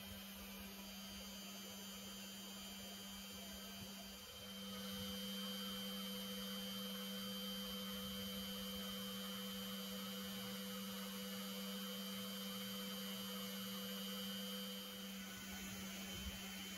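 Bee vacuum's motor running steadily, a low constant-pitched hum that grows louder about four seconds in and eases back near the end.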